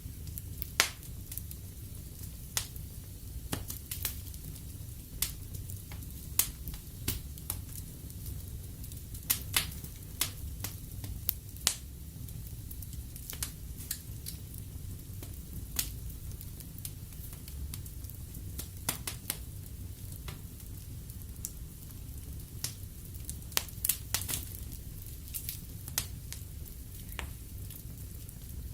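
Wood fire burning in a fireplace, with irregular sharp crackles and pops from the burning logs over a steady low rumble and soft hiss of the flames.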